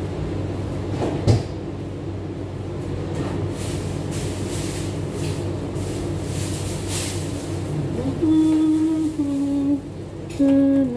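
Steady low room hum with a sharp knock about a second in and light clatter. From about eight seconds in, a simple tune of held notes starts and is the loudest sound.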